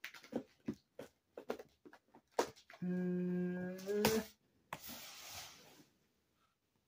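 Small knife scraping and slicing through packing tape on a cardboard box, in short clicks and scrapes. About three seconds in a person hums one held note for about a second, then the tape gives a second-long rasp as it comes free.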